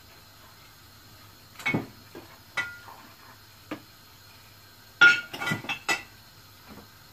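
Clinks and knocks of a glass cooking-oil bottle being handled and set down on a kitchen counter: a few single clinks, then a quick cluster of sharper clinks about five seconds in, the first of them ringing briefly.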